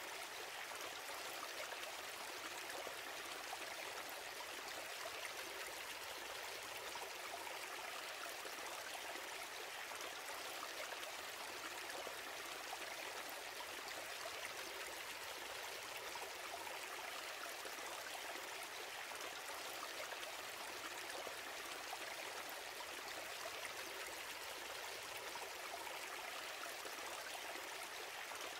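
A steady, even hiss that does not change, with no separate sounds in it.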